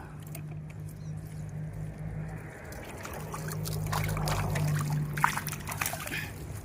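Water sloshing and trickling, with scattered clicks, over a low steady hum that breaks off briefly about halfway through; the water sounds grow louder in the second half.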